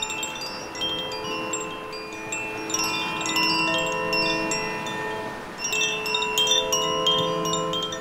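Koshi Air wind chime ringing: clusters of bright struck notes that ring on and overlap, thinning out for a moment in the middle. Underneath runs a steady wash of waves on rocks.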